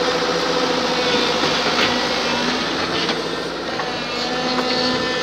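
Hitachi crawler excavator working close by: its diesel engine and hydraulics run steadily with a whine in the first couple of seconds, and a few metallic clacks come through as the machine moves.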